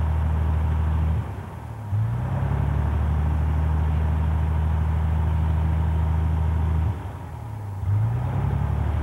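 Steady low drone of a light plane's engine and propeller heard inside the cabin. It drops away briefly twice and comes back each time with a short rising tone.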